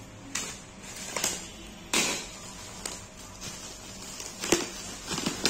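Clear plastic wrapping on a cardboard parcel crinkling and tearing as hands pull it open, in irregular bursts, the sharpest about two seconds in and again about four and a half seconds in.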